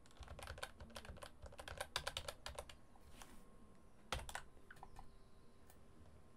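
Computer keyboard keys and mouse buttons clicking faintly in quick, irregular runs: dense for the first three seconds, a short cluster about four seconds in, then only a few scattered clicks.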